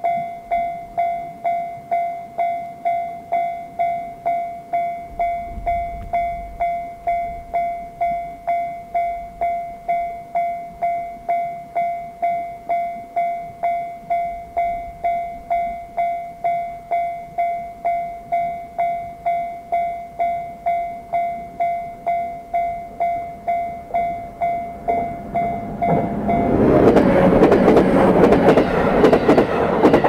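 Japanese level-crossing alarm sounding the JR standard electronic bell tone in rapid, evenly repeated strikes. About 26 seconds in, a JR 211-series electric local train passes through the crossing, its running noise and wheel clatter growing loud and covering the bell.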